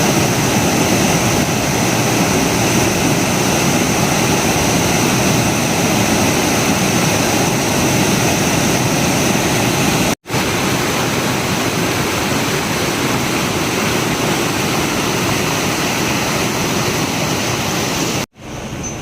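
Water rushing over the surplus weir of a brim-full, overflowing tank: a steady, loud rush, broken off for an instant twice.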